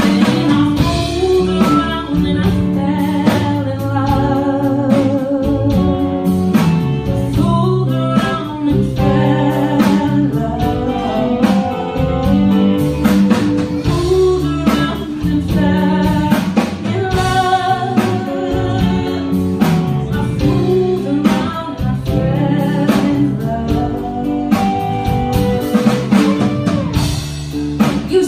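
Live band performance: a woman singing lead into a microphone, holding notes with vibrato, over drum kit, electric bass and electric guitar.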